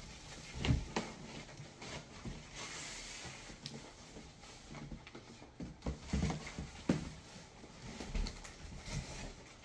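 Items being handled and unpacked from a cardboard box: irregular knocks and thuds, with a stretch of rustling packaging a few seconds in.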